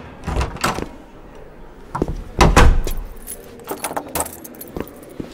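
A door's latch and handle clicking and rattling, with one heavy thud about two and a half seconds in, then more scattered clicks.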